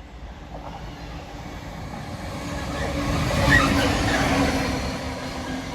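Freight train passing close by: the rumble of its wheels on the rails builds to a peak about halfway through and then fades as it goes by, with a steady engine note as the locomotive passes.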